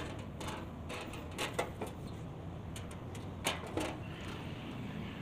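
Metal drill press casting being handled and set down: a scattered series of light knocks and clacks, the sharpest about three and a half seconds in, over a steady low hum.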